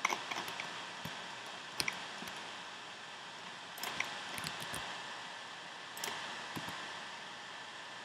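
Scattered sharp clicks and taps of a computer mouse and keyboard being worked, a small cluster about four seconds in, over a steady hiss.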